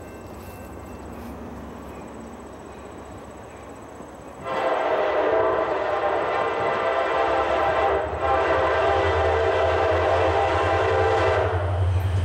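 Diesel locomotive air horn sounding long, steady blasts, starting suddenly about four and a half seconds in and breaking briefly twice, over the low rumble of the approaching train, which grows louder near the end.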